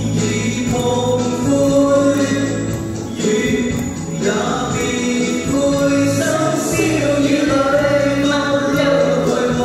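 Two men and a woman singing a pop song together through microphones over recorded backing music, with long held notes.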